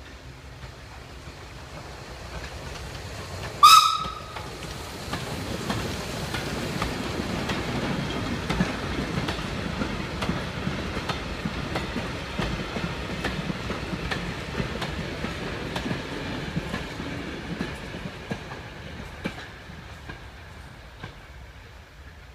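Heritage steam train at an unguarded level crossing: one short whistle blast about four seconds in, the loudest sound, as the warning for the crossing. Then the train rumbles past with steady clicking of wheels over the rail joints, fading near the end.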